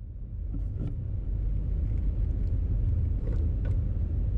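Steady low rumble, with a few light clicks and knocks of plastic as the engine's air intake hose is worked loose by hand.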